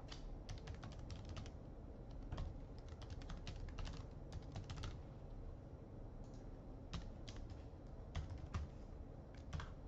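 Computer keyboard typed on in short, irregular bursts of faint key clicks with pauses between them, as login details are entered.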